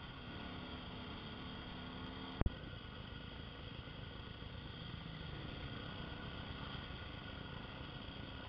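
Motorcycle riding noise picked up by a helmet camera: a steady mix of engine and wind rush, with one sharp click about two and a half seconds in.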